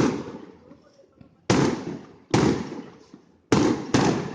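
Aerial fireworks shells bursting: about five sharp booms, each trailing off over a second or so. One comes at the start and the others follow between about one and a half and four seconds in, the last two close together.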